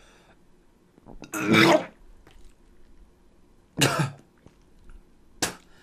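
A man coughing hard three times, the first cough the longest and loudest, choking on a drink that went down the wrong pipe.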